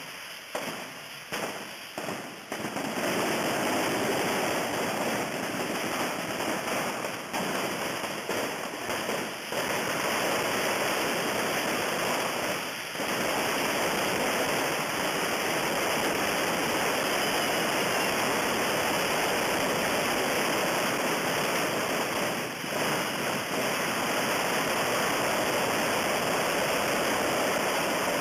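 Many fireworks rockets (coets) burning at once make a dense, continuous hissing, with several sharp bangs in the first few seconds and a few more scattered later.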